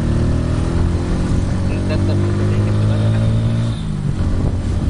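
Bajaj Pulsar N150's single-cylinder engine running while riding, its pitch rising slightly and then dropping about four seconds in, over road and wind noise.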